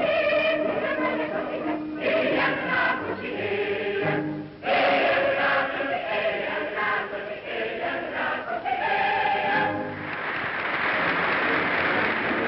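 Large mixed choir of women and men singing a song in held, sustained chords; about ten seconds in the song ends and audience applause takes over.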